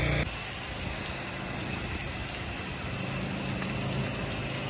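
Steady hiss of water spraying from a pressure-washer rinse wand onto a building front, with a faint engine hum underneath.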